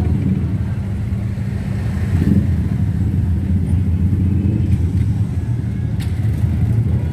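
Generator set running with a steady, loud low rumble, powering the sound system's amplifier racks.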